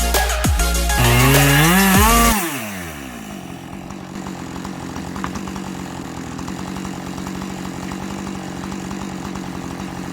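Electronic music with heavy bass and a rising wobble for about the first two seconds, then a Husqvarna chainsaw in a chainsaw mill running at a steady pitch as it rips a slab from a green red fir log.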